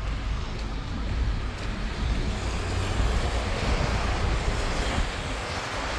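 Traffic on a wet street: a passing vehicle's tyre hiss swells and fades over a few seconds, over a low wind rumble on the microphone.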